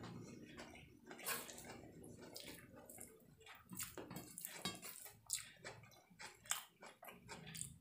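Close-miked wet eating sounds: irregular smacking clicks of chewing by mouth, and fingers squishing and gathering fried rice and noodles on a steel plate.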